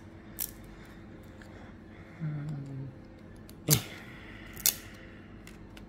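Trading cards being handled, with two sharp snaps about a second apart.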